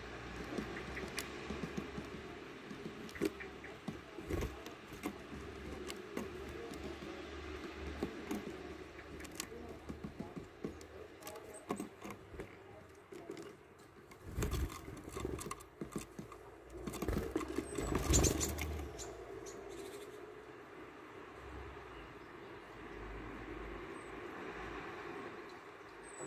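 Great tits pecking at a mesh bag of peanuts and scrabbling on the wooden floor of a bird feeder: a steady run of light taps and scratches, with louder rustling bursts about 14 seconds in and again around 17 to 19 seconds.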